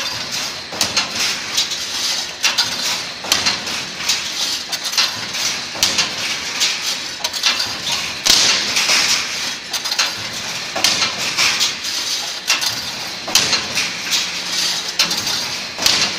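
Automatic welded wire mesh machine running, resistance-welding the cross wires onto the mesh: a rapid, irregular run of metallic clanks and crackles over a steady hiss.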